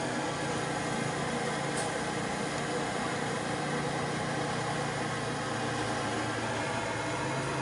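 Pork sinigang boiling in a wok over a wood fire: a steady hiss with a low steady hum underneath, the hum growing stronger about halfway through.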